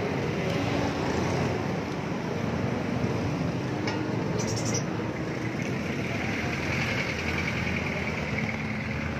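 Steady street noise of road traffic and people, with vehicles passing and a sharp click about four seconds in.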